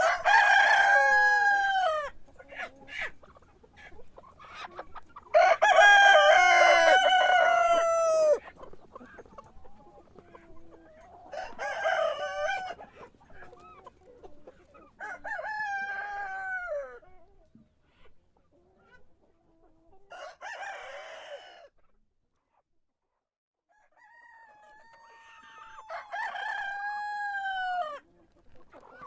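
Rooster crowing again and again, about six long crows with pauses between them; the first two are loud and the later ones fainter.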